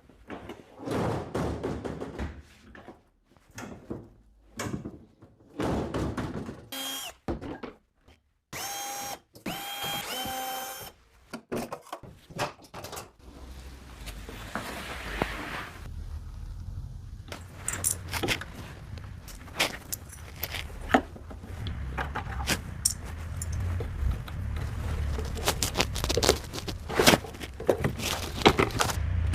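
Hands-on work on a dishwasher door and hinge: scattered knocks and clicks, and three short squeaks a little under halfway in. A steady low hum with more clicking runs through the second half.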